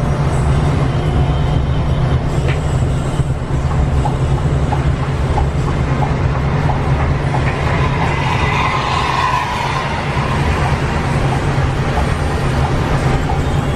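Steady engine drone and road noise inside a coach bus cruising at speed.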